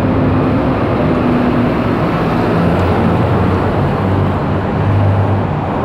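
City street traffic: a steady rush of passing cars and buses with a low engine hum that swells and fades.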